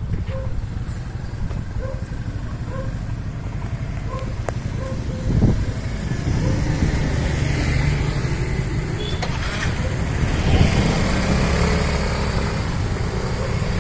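Motor vehicle travelling: a steady engine-and-road rumble, with a louder bump about five and a half seconds in and a swell near ten seconds.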